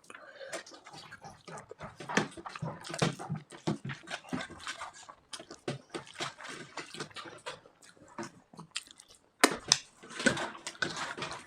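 Wet eating sounds: irregular chewing, slurping and lip smacks from eating curry, dal and pakoras.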